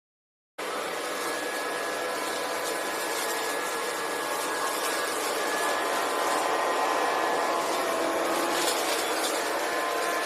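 Kirby upright vacuum cleaner running steadily, a loud rushing noise with a motor whine over it, starting abruptly about half a second in.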